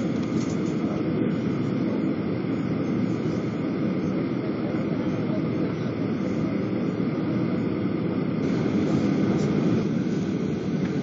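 Steady jet-engine and cabin noise heard from inside a Boeing 737-800 as it taxis, its CFM56 turbofans running at low power, growing a little louder near the end.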